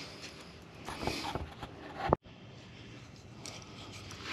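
Faint rustling and handling noises with a sharp click about two seconds in. The sound cuts out completely for a moment just after the click.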